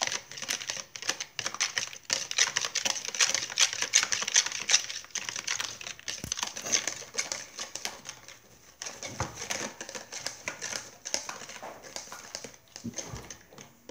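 Wire whisk rattling fast against a plastic bowl as it beats an egg-and-milk mixture, a dense stream of rapid clicks that grows fainter and more broken in the second half.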